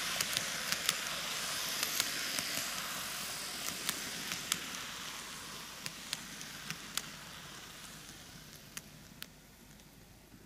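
TOMIX N-gauge model train, a Kintetsu 80000 series Hinotori six-car set, running on its track: a steady hiss of the wheels and motor with irregular sharp clicks as the wheels cross rail joints. The sound fades gradually and dies away near the end as the train slows to a stop.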